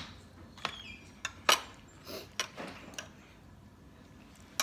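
Spoon and dishes clinking a few times against a plate during a meal, with the sounds of eating in between; the sharpest click comes about one and a half seconds in.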